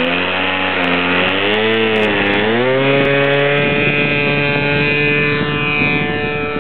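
Zenoah G20ei 20cc single-cylinder two-stroke gas engine of a large RC Piper Cub opened up to full throttle for a takeoff run. The pitch climbs, wavers for a moment, then holds steady and high as the plane rolls away and lifts off.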